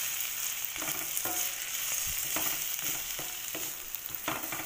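Chopped beans, carrots and onion sizzling in hot oil in a pan while being stir-fried, with the scrape of the stirring utensil against the pan about once a second.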